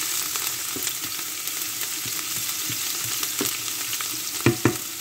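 Chopped garlic and ginger sizzling in hot oil in a pan while being stirred, with light scraping clicks; two sharp knocks near the end.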